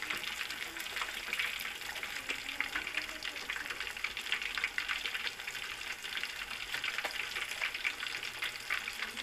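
Chicken pieces deep-frying in a pan of hot oil: a steady crackling sizzle dense with fine pops.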